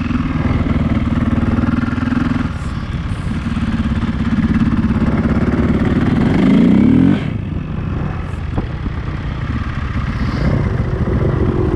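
Dirt bike engine running and revving, rising in pitch to its loudest about six seconds in, then dropping off suddenly just after seven seconds as the throttle is let go.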